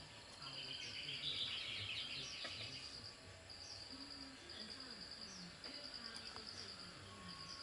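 Faint outdoor insect trilling: high, rapid pulse trains repeating in phrases of a second or two. Birds chirp over it, with a busier burst of short notes from about half a second to three seconds in.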